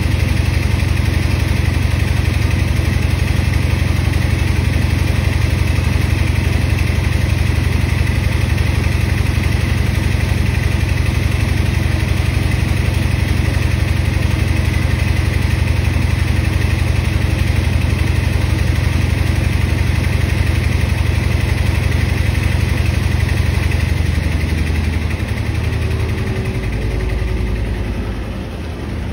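Electrolux W4250S washer-extractor on its final high-speed spin, the drum running with a loud, steady low hum and vibration. About 24 s in the hum drops lower and quieter.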